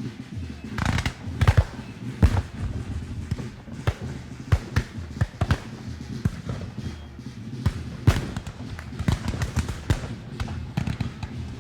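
Battlefield gunfire sound effect: irregular gunshots, single and in short clusters, some sharp and close and others duller, over a steady low rumble.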